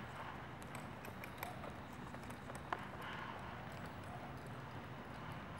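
A ridden horse walking on soft dirt arena footing: faint, irregular hoof steps with a few light clicks over a low steady hum.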